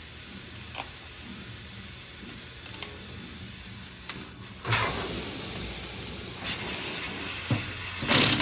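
Air hissing out of a punctured car tire around a tool in the puncture hole. About halfway through, the hiss suddenly gets much louder and stays loud.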